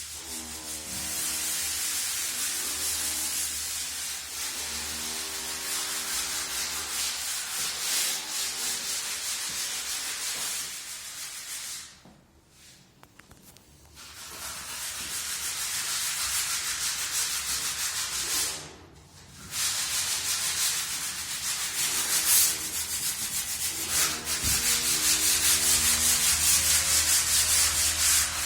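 Electric power tool running with a loud abrasive hiss over a steady motor hum, like a sander on a wall surface. It stops twice for a second or two before starting again.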